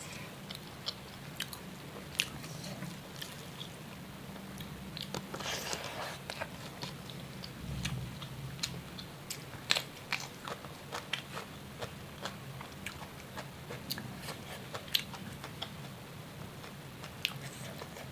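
A person chewing and crunching food, with many irregular small sharp crunches over a steady low hum.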